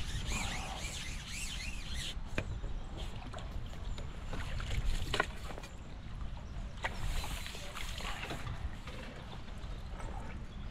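Water splashing and sloshing as a hooked roach is played at the surface on a pole and drawn into a landing net, with a few sharp knocks from handling the pole and net over a low rumble.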